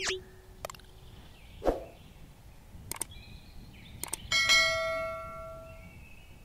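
Subscribe-button animation sound effects: a short swish, a few sharp mouse clicks, then a single notification-bell ding about two-thirds in that rings out and fades over about a second and a half.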